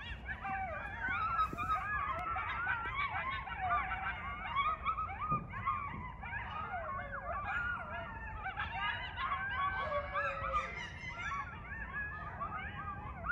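A group of coyotes yipping and howling together: many overlapping wavering, gliding calls, with a lower falling howl near the end.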